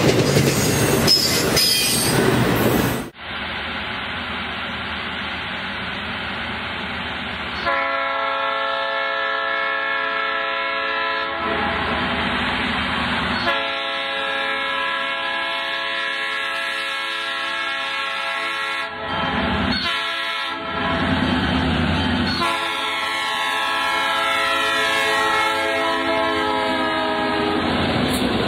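Freight train rumbling and clattering over the rails, cut off abruptly about three seconds in. Then a diesel freight locomotive's multi-tone air horn sounds in several long blasts with short breaks, its pitch falling slightly near the end as it passes.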